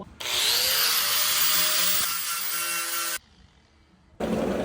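A power tool's motor spinning up with a rising whine under a loud hissing noise, stopping abruptly about three seconds in; a second loud stretch of tool noise starts near the end.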